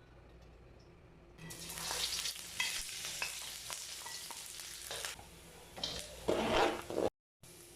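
Stir-fry sizzling in a hot pan while it is stirred, with the spatula scraping and clicking against the pan. The sizzle starts about a second and a half in and swells louder near the end, then cuts off abruptly for a moment.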